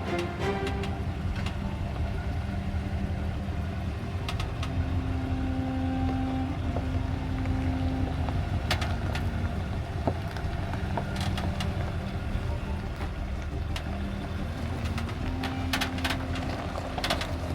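Off-road 4x4's engine running at low speed as it crawls slowly over a rocky trail, with scattered sharp clicks and cracks throughout.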